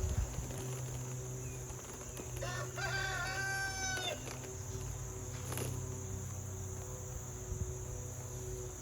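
A rooster crowing once, about two and a half seconds in, its call lasting about a second and a half.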